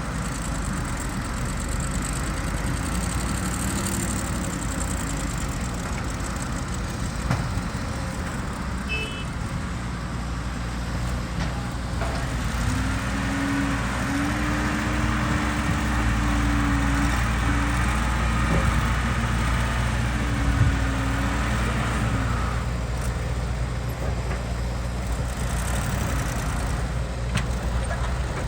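Heavy diesel engine of an excavator working steadily. A whining tone rises about twelve seconds in, wavers for several seconds while the low rumble grows louder, then fades out.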